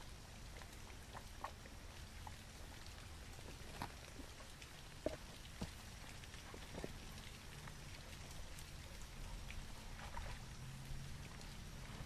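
Light rain: scattered drops ticking irregularly over a faint low rumble.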